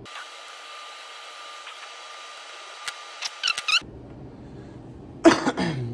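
Small clicks and squeaks from plastic servo-lead connector pins being handled, about three seconds in, over a faint steady hiss with a thin whine. A loud cough about five seconds in.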